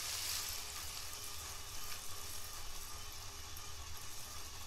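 Loose LEGO bricks rustling and shifting in a steady hiss, with a faint steady whine underneath.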